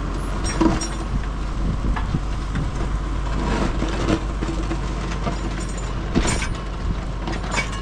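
Tractor engine running steadily under load as it pulls a rear-mounted grader blade whose tine cuts a trench through hillside soil, with several sharp clunks from the blade and tine working the ground.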